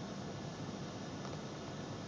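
Steady rush of ocean surf and wind, with no single wave breaking.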